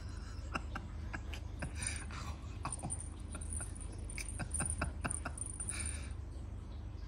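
A Siamese cat and a person's hand scuffling on a blanket-covered couch during rough play: a run of soft, irregular taps, clicks and rustles of fabric and fur.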